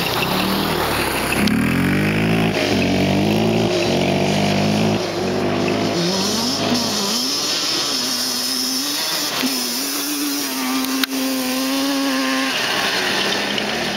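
Yamaha Banshee quad's twin-cylinder two-stroke engine, fitted with FMF Fatty expansion pipes and PowerCore 2 silencers, revving hard as the quad accelerates away. Its pitch climbs and dips with the throttle, then holds a steady high note in the second half.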